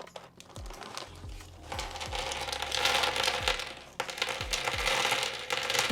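Plastic packaging of keyboard switches crinkling and rustling as it is handled, loudest from a couple of seconds in, over background music with a steady kick-drum beat.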